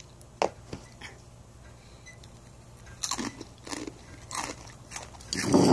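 Crunching and chewing of spicy rolled corn snack chips (Takis or Hot Fries). A few light crunches come in the first second, then a run of sharper crunches from about three seconds in, and a louder muffled noise near the end.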